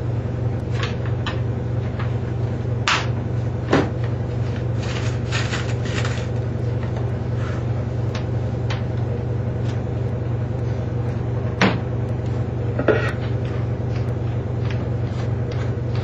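A few scattered clicks and knocks of a cordless drill being handled as its drill bit is taken out of the chuck, over a steady low hum.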